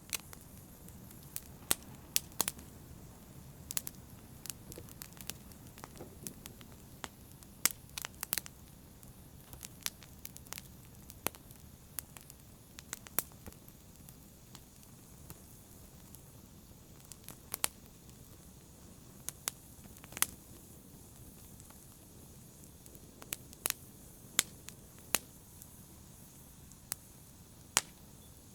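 Open fire crackling: irregular sharp pops, roughly one or two a second, over a soft, steady low rush of burning.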